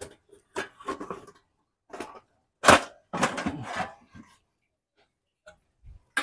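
Sheet-metal cover of a battery charger being worked loose and lifted off its chassis: scattered knocks, a sharp metal clank about two and a half seconds in, then about a second of scraping and rattling.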